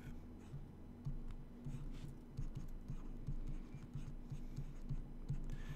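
A stylus writing on a pen tablet: faint, irregular taps and scratches of the pen tip on the surface, over a low steady hum.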